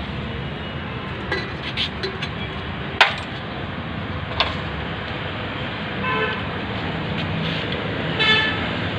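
Steady road-traffic noise, with a vehicle horn tooting briefly twice in the second half. Two sharp knocks are heard about three and four and a half seconds in.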